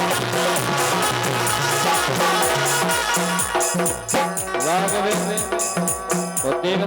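Bundeli folk music: drums and a rattle keep a fast, even beat, and about halfway through a pitched melodic line comes in over it, gliding up and down.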